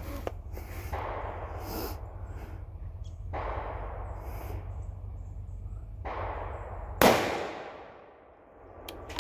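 A single cold-bore shot from a muzzle-braked Howa 1500 bolt-action rifle about seven seconds in: one sharp crack with a fading tail. Before it, soft rushing noises come every two to three seconds over a steady low rumble.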